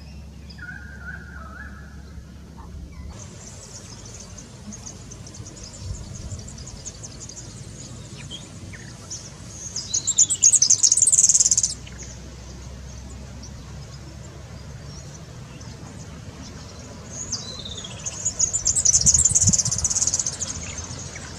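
Bird calling in two loud bouts of rapid, high-pitched calls about eight seconds apart, each with some falling notes, over a steady high hiss.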